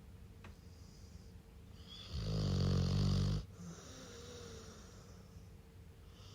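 Rottweiler snoring in its sleep, a deep snore that sounds like a middle-aged man's. One loud snore comes about two seconds in and lasts about a second, with quiet breathing before and after.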